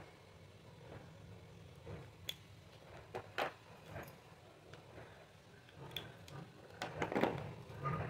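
Felt-tip markers being handled while colouring on paper: scattered light clicks and taps as pens are picked up, switched and put down, the loudest cluster near the end, over a faint steady low hum.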